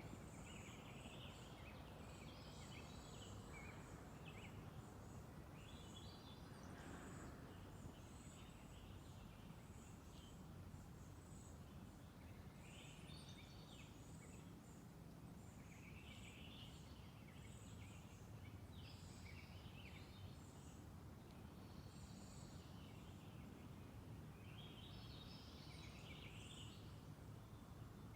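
Faint songbird song: short warbling phrases repeated every few seconds. Under it runs a steady, pulsing high-pitched note and a low background hum.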